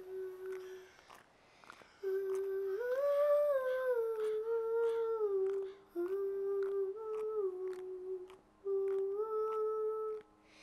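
A girl's high voice humming a slow, wordless melody in short phrases with pauses between them.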